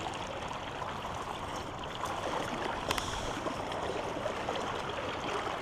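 Steady rush of a shallow river's current flowing over rocks, with a single sharp click about three seconds in.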